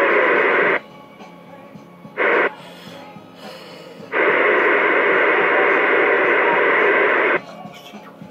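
CB radio speaker hissing with static as the squelch opens in three bursts: a short one at the start, a brief one about two seconds in, and a long one of about three seconds starting four seconds in. Someone is keying up on the channel and breaking the squelch without speaking.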